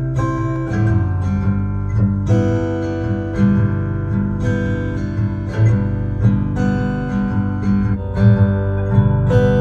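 Acoustic guitar music with a steady bass line, played back through a portable Bluetooth speaker in a sound test.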